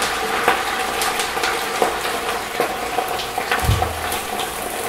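Wet broccoli rabe sizzling and crackling in hot oil in a cast-iron pot, the water on the leaves flashing into steam; a low thump about three and a half seconds in.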